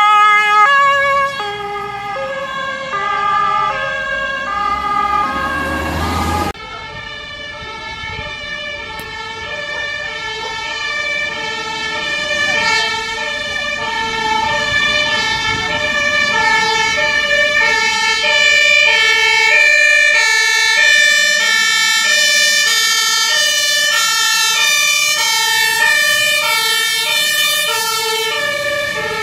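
German fire-service two-tone sirens (Martinshorn) sounding their alternating high and low notes as fire brigade vehicles drive past on an emergency run. The first siren fades as its van moves away. After a sudden break about six seconds in, another siren builds up and stays loud through the second half as a fire engine approaches and passes.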